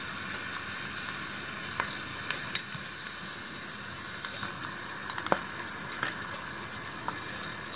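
Sliced onion and green chilli sizzling in hot oil in a small steel pot: a steady frying hiss, with a few sharp clicks through it.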